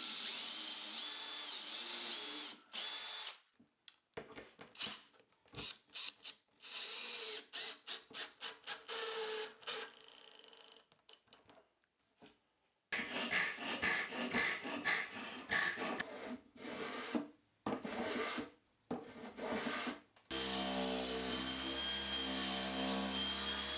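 Cordless drill/driver boring pilot holes and driving screws into a wooden frame, running in short stop-start bursts. Near the end a random orbital sander starts and runs steadily on the wood.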